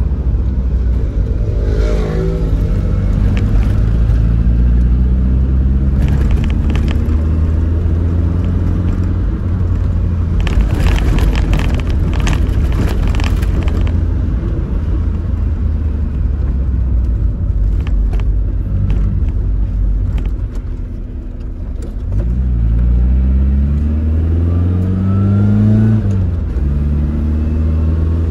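Tofaş Doğan SLX engine and loud exhaust running hard under throttle, with the revs climbing for a few seconds near the end and then dropping sharply.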